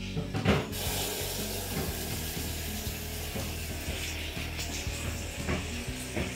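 Steady hiss of a covered steaming pot on a lit gas burner, starting sharply about a second in, over soft background music.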